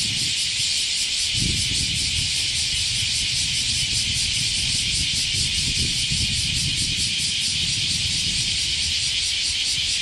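A chorus of bear cicadas (kumazemi) singing all at once: a dense, steady, high-pitched drone with a fast, even pulse, over a low rumble.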